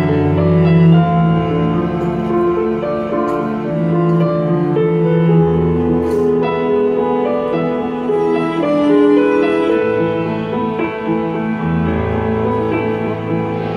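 Live instrumental interlude with no singing, played on a stage keyboard with a piano sound over held chords and low bass notes.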